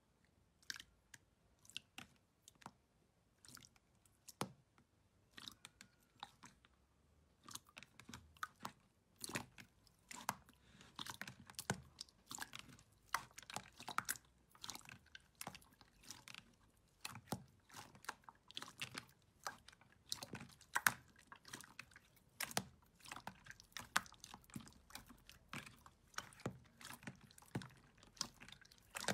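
Slime being pressed and worked by hand, giving a string of small sharp clicks and crackling pops. They come sparsely at first and then thick and fast after about seven seconds.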